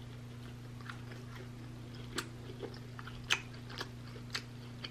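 Close-miked chewing of a crispy glazed lamb chop: wet mouth sounds with a few sharp clicks and crunches, four standing out in the second half, over a steady low hum.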